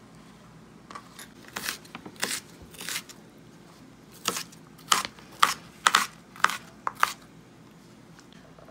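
Kitchen knife chopping red and green bell peppers on a cutting board: a dozen or so crisp, uneven strokes starting about a second in, the loudest and quickest in the second half, stopping near the end.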